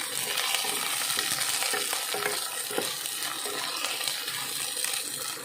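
Garlic and aromatics sizzling steadily in hot oil in a cooking pan while being stirred, with a few light knocks of the stirring utensil.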